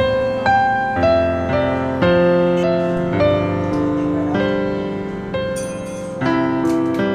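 Background piano music, a slow melody with notes struck about once a second.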